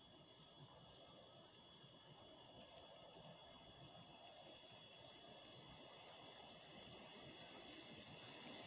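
Faint, steady chorus of crickets, a continuous high-pitched trill with no break.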